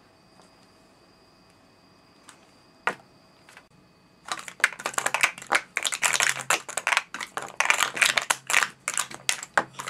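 Mini plastic sport stacking cups being stacked and unstacked at speed in a cycle sequence: after a quiet start with a couple of single taps, a fast, dense run of plastic clicks and clatter begins about four seconds in.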